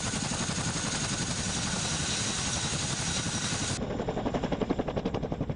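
Boeing CH-47 Chinook tandem-rotor helicopter running with its rotors turning, a dense steady noise with a thin high whine. About four seconds in, it cuts to a Chinook flying past with a rapid, even rotor chop.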